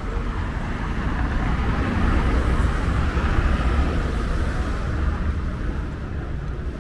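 Street traffic: a car passing close by, its tyre and engine noise swelling to a peak about halfway through and then fading, over a steady low rumble.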